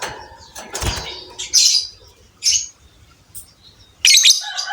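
Lovebird giving short, shrill chirps in separate bursts, the loudest near the end, with a dull thump about a second in.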